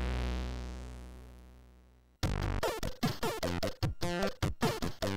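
Commodore 64 SID chip music: a held synth chord fades away over about two seconds, then a new tune starts abruptly with sharp, punchy drum hits and quick notes.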